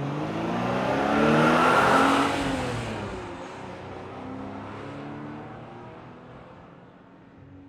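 Car engine revving hard as it speeds away, its pitch climbing and then dropping as it fades into the distance.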